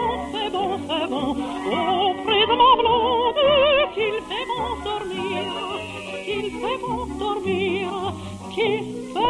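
Orchestral music in an operatic style, the melody carried with heavy vibrato over held lower notes.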